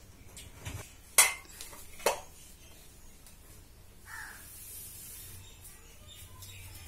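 Two sharp clinks of crockery, about a second apart, over faint room noise.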